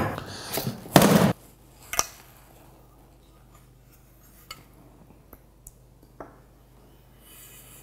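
Handling noise from a metal LED light bar coming out of its foam packaging: rubbing and rustling for about the first second, a knock about two seconds in, then a few faint clicks as the bar and its mounting bracket are turned over by hand.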